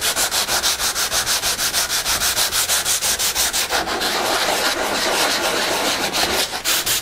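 Sandpaper rubbed by hand back and forth with the grain along the edge of a wooden box, in rapid, even scratchy strokes with a short break about four seconds in, easing the sharp edge to round it over.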